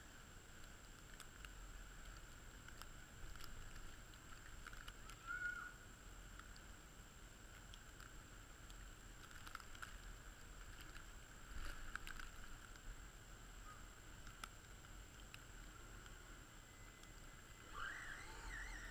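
Nearly quiet, with a faint steady hiss. About a second before the end comes a brief wavering whine as the small radio-controlled car's electric motor drives up close.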